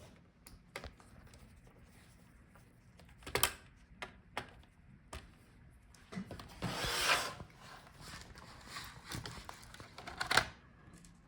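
Laptop hinges and plastic back cover being handled and fitted: scattered clicks and knocks, then rubbing and scraping of plastic and metal about six seconds in, ending with a sharp click near the end.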